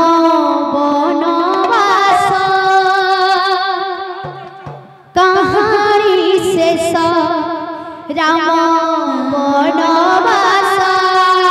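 Kirtan music led by a woman singing loudly through a PA system: three long, heavily ornamented phrases, each starting suddenly, with short breaks about 4.5 and 8 seconds in.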